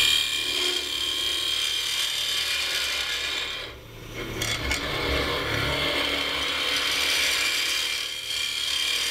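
Hollowing tool cutting into a maple burl box blank spinning on a wood lathe: a steady scraping, chattering cut as shavings are thrown off, easing briefly about four seconds in when the tool lets up, then cutting again.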